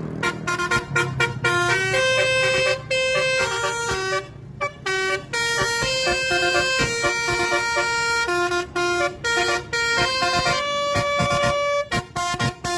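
Bus 'telolet' musical air horn playing a tune: a quick run of short notes and longer held notes at changing pitches, with brief gaps between them.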